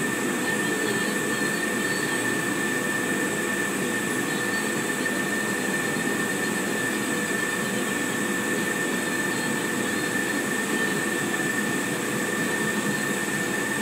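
Xenetech XLT laser engraver running a marking job: a steady mechanical whir with a constant high whine over it, unchanging throughout.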